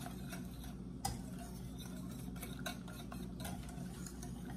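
A metal utensil stirring hot chocolate in a stainless steel saucepan, with light scraping and clinking against the pan and one sharper clink about a second in.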